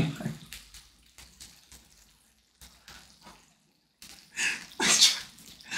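Faint crackling and spitting of meat and mushrooms on an electric tabletop grill, overdone to the point of burning. About four seconds in come two loud breathy bursts of a man's voice.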